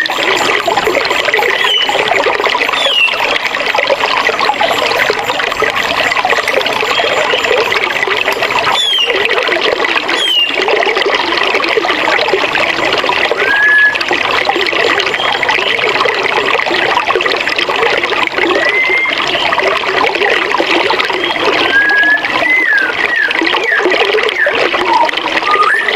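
Forest river running steadily as an even watery rush, with scattered short bird chirps and whistles above it.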